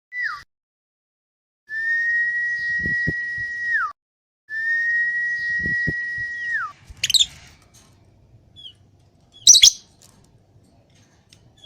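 Lovebird calling: two long, steady whistled notes of about two seconds each, each ending in a quick downward slide, followed by two sharp, harsh squawks, the second the loudest.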